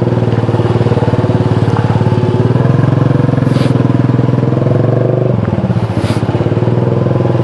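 Motorcycle engine running under way, a steady pulsing note that drops in pitch about five seconds in as the throttle eases off.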